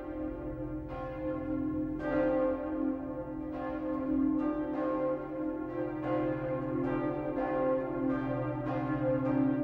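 Church bells ringing, struck over and over at an uneven pace of about one strike a second, their tones overlapping into a continuous ringing hum.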